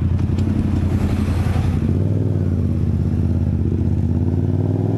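Motorcycle engine running steadily while ridden through town, its pitch rising a little near the end as it picks up speed.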